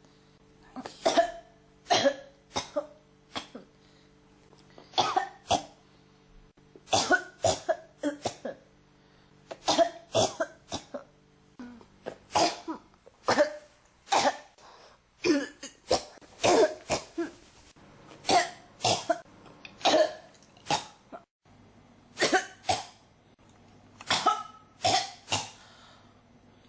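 A person coughing over and over in short fits of two to four coughs, a new fit every second or two without letting up.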